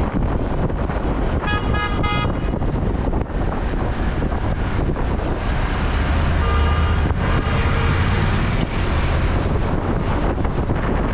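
Wind rushing over the microphone and city traffic rumbling while driving, with a short car-horn toot about a second and a half in. A fainter, longer horn-like tone sounds from about six to eight and a half seconds.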